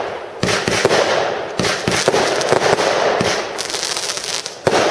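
Fire System Alpha compound fireworks cake firing. Sharp bangs come about half a second, a second and a half and near five seconds in, each followed by a long crackling tail, with a dense patter of small cracks in the middle.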